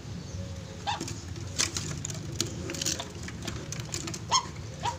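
Zebra doves (perkutut) giving a few short, separate calls, heard over a low steady hum.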